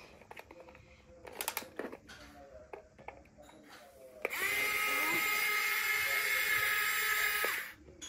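Yigong toy RC excavator's small electric motors and plastic gearing whining steadily for about three seconds as the machine turns round, starting about four seconds in and cutting off sharply. Before that come a few short clicks and brief motor buzzes.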